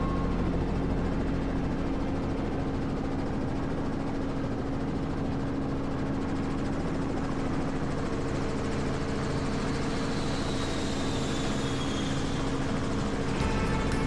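Robinson piston-engine helicopter running steadily while hover-taxiing low over the apron, a constant drone of rotor and engine.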